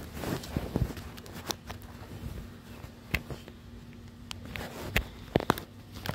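Handling noise of a phone camera being moved and fitted into place: irregular knocks, clicks and rubbing, with a few sharper knocks in the second half, over a faint steady hum.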